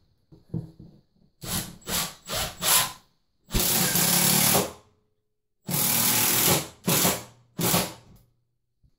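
Cordless Milwaukee drill/driver driving screws up through the bottom of a wall cabinet. It runs in short blips a few times, then in two longer runs of about a second each, then in two more short blips near the end.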